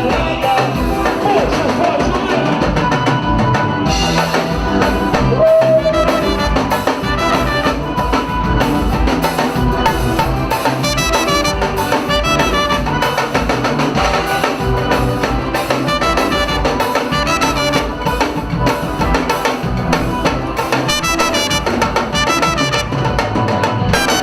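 Band music with brass and drums over a steady beat.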